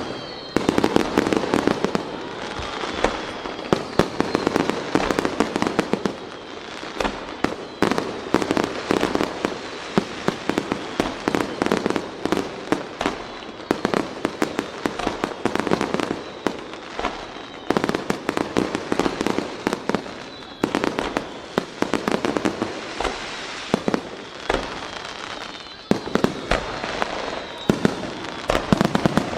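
Aerial firework shells bursting in a dense, continuous barrage of bangs and crackles. A thin high whistle glides down at the start and again near the end.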